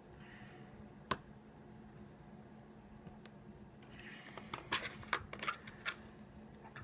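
Metal lock picks clicking and scraping inside an ASSA 700 lock: one sharp click about a second in, then a run of quick clicks and scrapes in the second half as the pins are worked.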